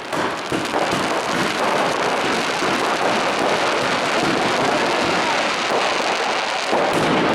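Dense, continuous crackling of many small firecrackers going off at once, a rapid barrage of tiny pops that merge into a steady crackle.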